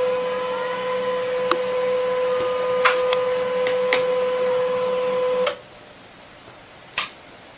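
Colour inkjet printer running, a steady motor whine with a few light clicks, stopping about five and a half seconds in; a single sharp click follows about a second and a half later.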